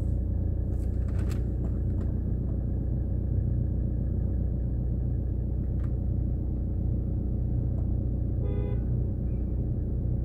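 Steady low rumble of a car engine heard from inside the cabin as the car idles or creeps in a queue. A short pitched tone sounds briefly about eight and a half seconds in.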